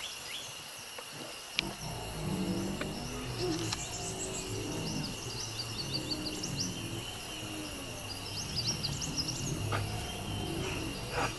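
Tropical forest ambience: a steady, high insect drone with many short bird chirps over it. Background music of low, sustained notes comes in about a second and a half in.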